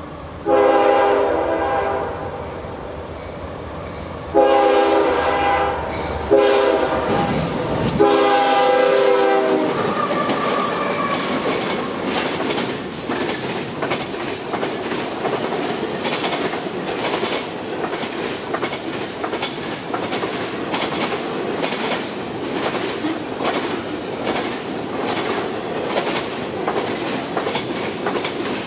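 A CSX GE Evolution-series (GEVO) diesel locomotive sounds its horn for a grade crossing in the standard long, long, short, long pattern. The double-stack intermodal train then passes at about 50 mph: a steady loud rumble with a rapid, regular clickety-clack of wheels over rail joints.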